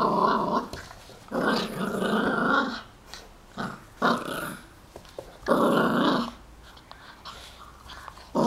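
Yorkshire terrier growling in about five short bursts, the longest lasting about a second and a half.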